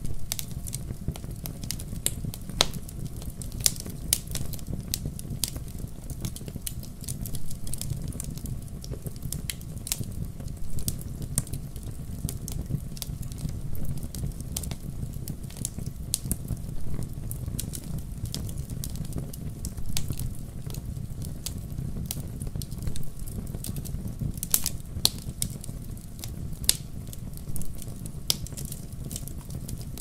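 Wood log fire burning in a fireplace: irregular sharp crackles and pops over a steady low rumble of flames.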